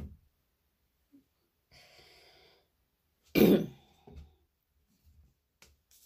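A woman coughs once, loudly, about three seconds in, followed by a smaller cough or throat-clearing.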